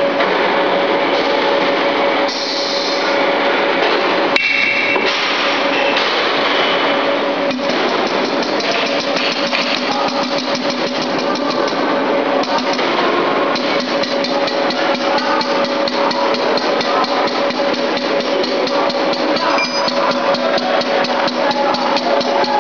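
Safety valve test bench running: fast, steady mechanical knocking with a steady hum under it while it builds pressure on a mounted spring-loaded safety valve.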